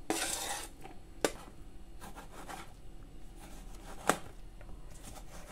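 Diced bell pepper slid and scraped off a cutting board into a bowl with a brief rustle at the start, then a knife slicing a tomato on the board, the blade knocking sharply on the board a couple of times, loudest about four seconds in.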